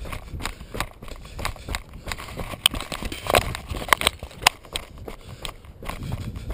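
Mountain bike rattling down a rough dirt trail at speed: tyres crunching over gravel and roots, with irregular sharp clicks and knocks from the bike, and a low wind rumble on the microphone.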